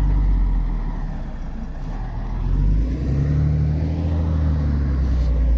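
Diesel engine of a truck-mounted cable tool drilling rig running under load as the truck pulls through soft sand. The engine gets louder and its note shifts about two and a half seconds in, then holds steady.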